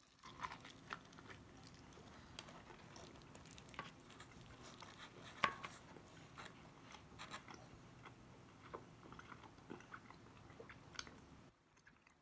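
A person chewing a mouthful of barbecued pork rib close to a phone microphone: faint, with many small clicks and one sharper click about five and a half seconds in. The chewing stops shortly before the end.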